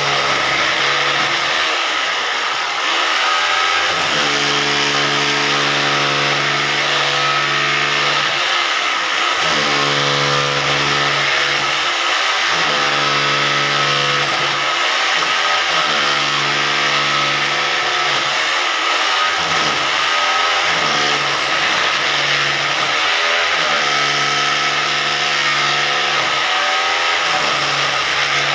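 Hammer drill motor running continuously. Its steady hum sags in pitch and recovers every two to four seconds.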